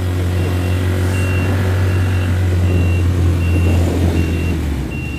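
Truck engine running with a steady low drone that eases off near the end, while an electronic beeper on the truck sounds a short high beep about every three-quarters of a second.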